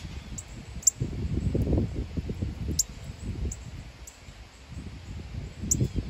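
Outdoor wind buffeting the microphone in uneven low gusts, with short, sharp, high bird chip notes every second or two.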